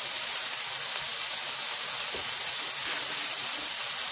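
Smash burger patties of high-fat ground beef sizzling steadily in their own grease on an electric flat top griddle.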